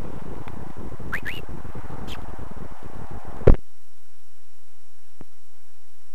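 Wind buffeting the microphone, with two short rising chirps about a second in. A sharp knock comes about three and a half seconds in, after which the wind noise stops and only a faint steady hum and hiss remain.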